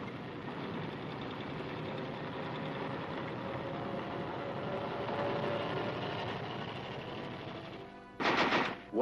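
Film soundtrack music over a steady rumble, followed by a sudden loud bang about eight seconds in.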